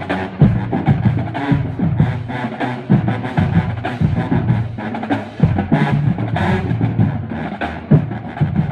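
Marching band playing: drums pounding out a beat with sharp, repeated hits under low brass notes from the sousaphones.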